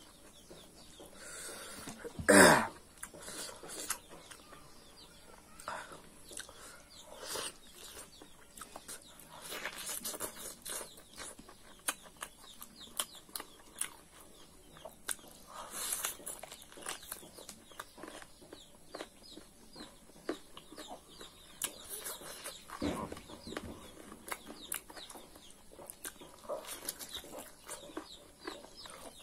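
Close-up eating sounds of a man biting and chewing curried beef and rice by hand: wet mouth clicks and lip smacks. One loud, sudden sound about two seconds in, and chickens cluck in the background.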